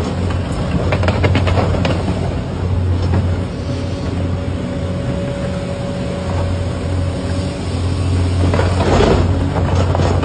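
Hitachi EX1200 excavator's engine running under load, with a steady hydraulic whine through the middle and bursts of crunching about a second in and again near the end as the ripper tears through the ground.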